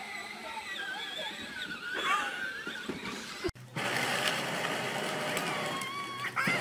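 Faint children's voices and squeals, then after an abrupt cut about three and a half seconds in, a steady low hum.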